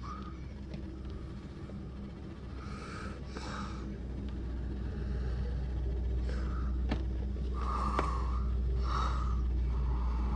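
Low rumble of blizzard wind buffeting the microphone, growing louder, with several short breaths close to the mic and a couple of faint clicks.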